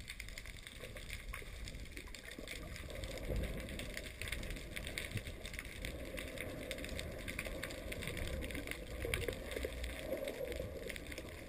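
Underwater ambience picked up by a submerged camera: a steady rumble of water moving around the camera, with fine crackling throughout.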